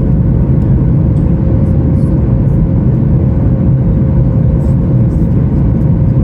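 Steady cabin roar of a Boeing 737 MAX 9 under power after takeoff: its CFM LEAP-1B engines and airflow heard from inside the cabin. A deep, even rumble with a constant mid-pitched hum running through it.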